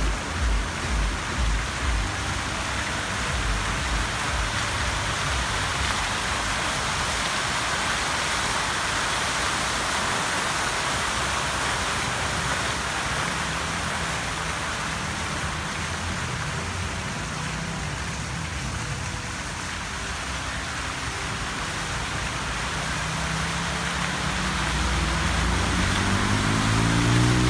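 Fountain water jets spraying and splashing into the pool, a steady rushing hiss, with a low rumble that grows louder near the end.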